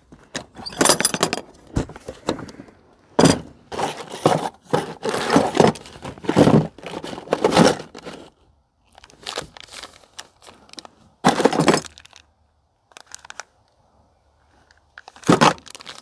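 Plastic tackle organiser box being handled and rummaged: the lid and compartment trays clatter and small pieces of tackle rattle inside, in a series of irregular clattering bursts with short pauses between.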